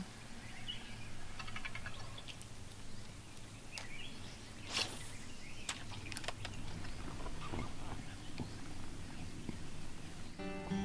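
Faint outdoor ambience with scattered short bird chirps and a few light clicks. Music comes in near the end.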